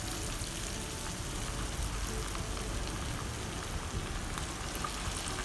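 Masala-coated chicken leg pieces sizzling steadily in hot coconut oil in a frying pan, a dense crackle of small pops just after the pieces go in.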